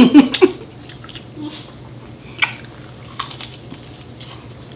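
Wet mouth sounds of eating chicken wings: scattered smacks and clicks of chewing, after a short spoken phrase ends in the first half second.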